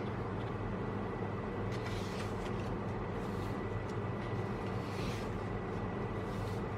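Steady low hum and background noise, with a few brief, soft rustles of photo book pages being turned.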